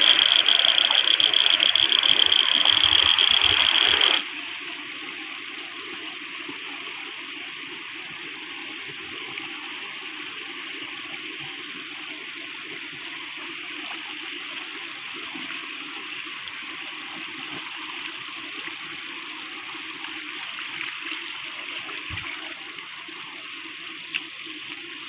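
Shallow water flowing steadily through a small ditch past a woven bamboo fish trap. For the first four seconds a louder hiss with a steady high whine runs over it, then cuts off abruptly.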